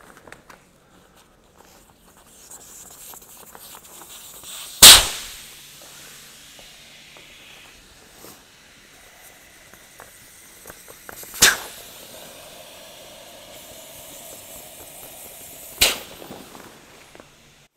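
Air valves on the inflatable air beams of an Opus OP4 camper-trailer annex being unscrewed: three sharp pops, about five, eleven and a half and sixteen seconds in, as valves open and the pressurised beams vent, with a hiss of escaping air between them, the first pop trailing off in a long fading hiss.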